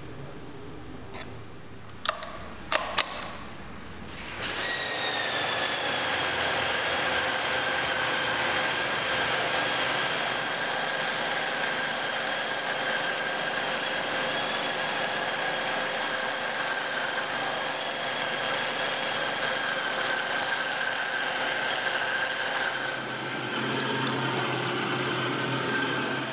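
A few sharp metal clicks as a spanner tightens the brass nut of the rotating wash brush onto the lance. Then, about four seconds in, a pressure washer starts running, with water spraying through the water-driven rotating brush: a steady high whine over a hiss of water.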